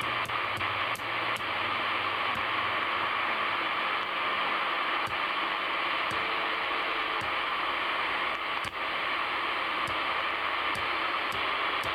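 Steady static hiss from a Uniden Pro 810e 40-channel CB radio's speaker as it is stepped across empty channels with no station heard, with faint clicks now and then.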